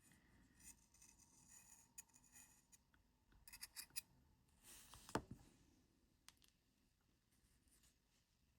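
Faint scraping and light clicks of a small tool working an old rubber O-ring out of a watch case's groove, with one sharper click about five seconds in.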